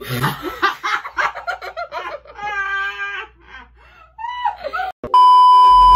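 A girl laughing hard in short bursts, with a drawn-out high wavering laugh in the middle. About five seconds in, a loud steady beep cuts in and holds for about a second.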